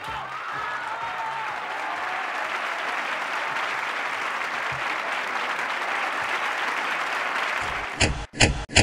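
Studio audience applauding steadily at the close of a live pop-rock song. Near the end, a few sharp, loud hits cut in.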